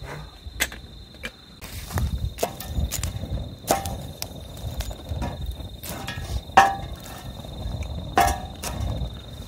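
Wood fire crackling and rushing in a small steel fire box, with a metal tool clanking against the box three times, each clank ringing briefly, over a steady high insect trill.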